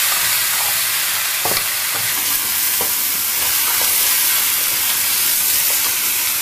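Pieces of pig knuckle sizzling steadily as they are stir-fried in a hot oiled pan, with a few knocks and scrapes of the spatula against the pan as it turns them. The sizzle is the water from the pork being cooked off before the skin turns golden.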